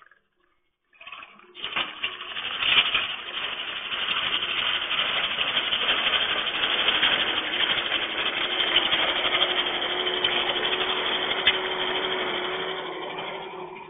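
Compact track loader's diesel engine running and its tracks rolling as it drives up close, heard through a security camera's microphone. The sound builds about a second in, stays loud with a few sharp knocks, and fades near the end as the machine moves off.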